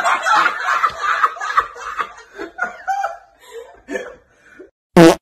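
A man laughing hard, then trailing off in shorter and shorter chuckles over about four seconds. A brief, loud burst of sound comes right at the end.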